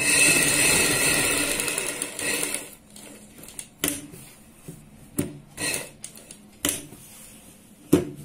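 Sewing machine stitching steadily through fabric layered on buckram for about two and a half seconds, then stopping. After that the fabric is pulled and turned, with rustling and several short sharp clicks; the sharpest click comes near the end.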